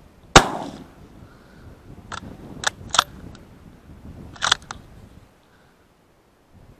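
A loud sharp knock about half a second in, then four lighter clicks and taps over the next few seconds: handling noise on a body-worn camera.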